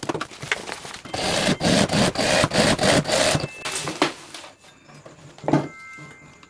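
Stiff nylon and mesh bag fabric rubbing and scraping as the padded back panel and its webbing straps are dragged and handled on the sewing table. It is loudest for about two seconds in the middle, with a few light knocks before and after.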